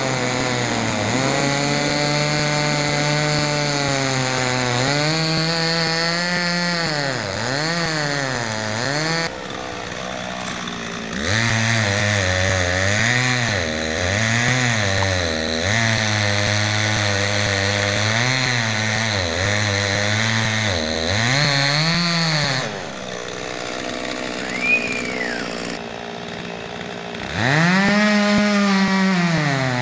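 Chainsaw running while cutting: the throttle is opened and eased off again and again, so the engine note keeps dipping and climbing back. It drops to a quieter run about ten seconds in and again for a few seconds past twenty, and there is a brief high squeak about 25 seconds in.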